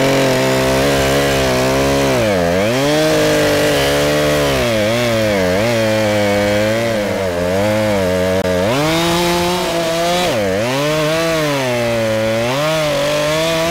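Two-stroke chainsaw cutting into a tree trunk with a dull chain, running at high revs that repeatedly sag and pick back up as the engine labours in the cut.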